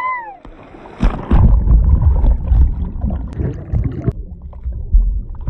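Wave-pool wave breaking over the microphone: loud churning, splashing water with a heavy low rumble. About four seconds in the sound turns dull and muffled as the microphone goes under the water among bubbles.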